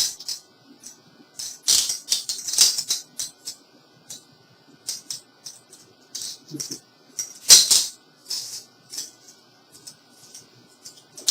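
Steel leg irons being handled and put on: the chain jangles and the cuffs click in irregular clusters, with louder rattles about two seconds in and again about two-thirds of the way through.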